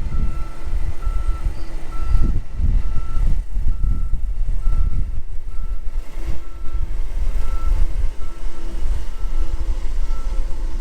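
Reversing alarm beeping steadily, about three beeps every two seconds, over a heavy low rumble of engine and wind.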